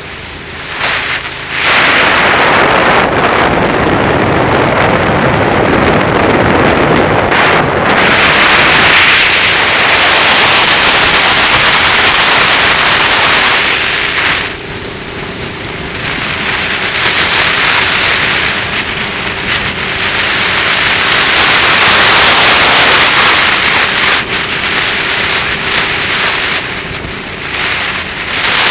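Heavy wind rush over a motorcycle-mounted microphone while riding at road speed, with the motorcycle's engine faintly under it. The wind eases off about halfway through and again near the end.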